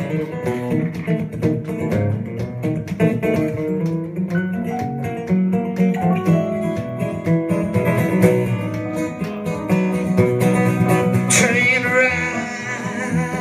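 Acoustic guitar and digital stage piano playing a blues-style tune together, with a man's voice coming in to sing about eleven seconds in.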